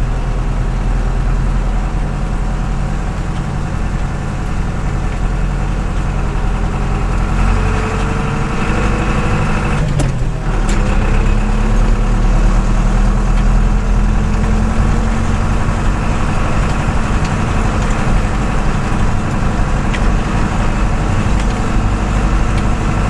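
IHC 745 tractor's diesel engine running under way, heard from inside the cab. About ten seconds in the sound breaks briefly with a click, then the engine runs on a little louder.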